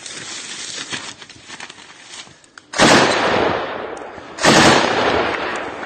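Gunfire in a firefight: scattered fainter shots, then two sudden, very loud bursts about a second and a half apart, each trailing off over a second or so.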